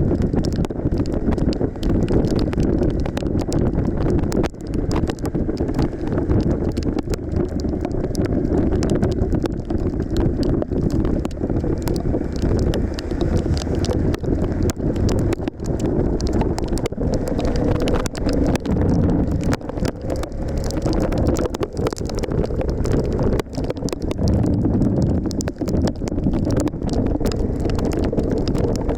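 Steady wind buffeting on the microphone of a moving Suzuki V-Strom 1050XT motorcycle, with the bike's V-twin engine running underneath.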